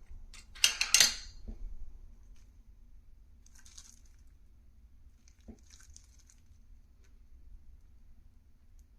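Handling noise on a small workbench: a few clicks and a short, loud rustle about a second in, then two faint rustles near four and six seconds, with quiet room tone between.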